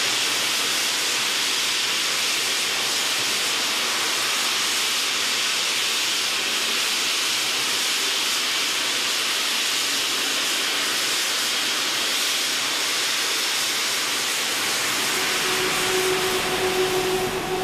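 A steady, even hiss, strongest in the upper range with almost no low end, starting abruptly just before and holding at a constant level throughout.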